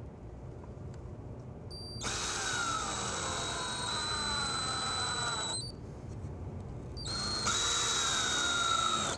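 Power drill driving screws into a metal drawer slide, in two runs: one about 2 seconds in lasting three to four seconds, and a shorter one near the end. In each run the motor's whine falls slowly in pitch.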